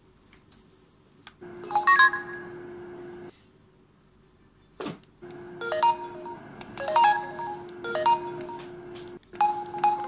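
Mobile phone's small speaker playing Samsung SGH-C270 ringtone-style tones on a Nokia 7230: short synthesized notes in two stretches over a steady low tone, the second with a note about once a second. A few faint clicks fall in the quiet gaps.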